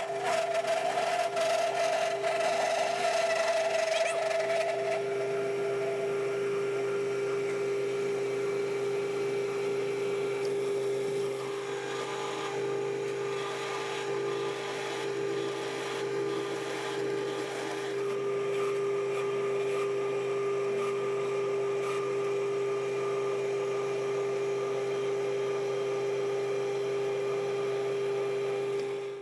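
Metal lathe running under power while single-point cutting a thread on a long steel bar with very light cuts, a steady mechanical hum throughout. For about the first five seconds a wavering squeal from the cut rides over it: chatter, which the machinist puts down to the tailstock live centre lacking rigidity.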